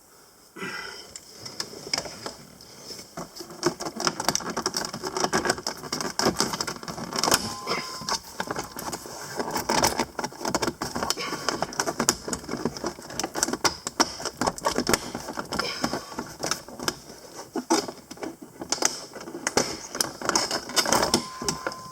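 Irregular clicking, tapping and rattling of plastic interior trim and clips being pried and handled around a car's windshield pillar.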